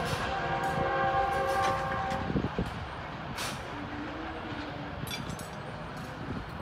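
Locomotive horn of a departing passenger train sounding one long chord of several tones, cutting off about two seconds in, over the rumble of the receding coaches on the track. The rumble fades, with two short low toots near the end.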